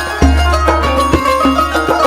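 Background music: Middle Eastern instrumental with quick plucked or struck notes over a steady low bass drone.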